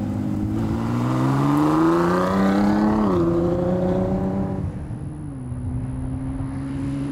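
2019 Ford GT's twin-turbocharged 3.5-litre EcoBoost V6 accelerating hard. The engine note climbs, drops at a gearshift about three seconds in, and climbs again. It then falls in two steps to a steady, lower note as the car eases off.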